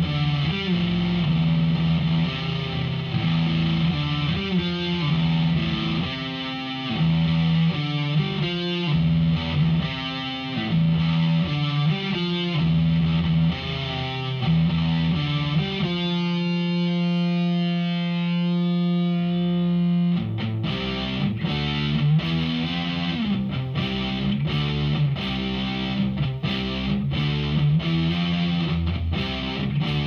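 Distorted electric guitar played through a Behringer V-AMP PRO amp modeler on an overdrive setting, playing riffs. Just past halfway one note is held for about four seconds, then the playing turns to short, choppy chords with brief gaps.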